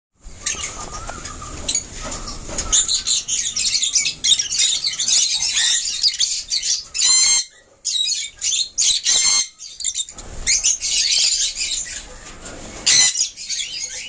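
Lovebirds chattering: a dense stream of high-pitched chirps, with louder shrill calls breaking through a few times, around the middle and near the end.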